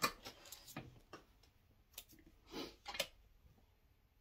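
A few scattered sharp clicks and short rustles, the loudest click right at the start. They come from handling the sewing machine and the fabric as a seam is finished and the piece is pulled out from under the presser foot.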